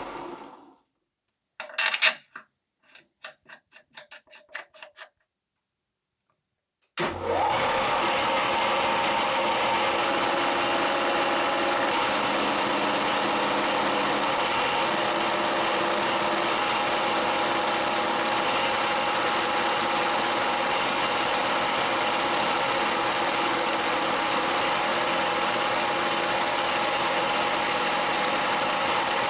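A series of about a dozen short clicks fading away, then, about seven seconds in, a motor-driven machine starts and runs steadily with a constant hum.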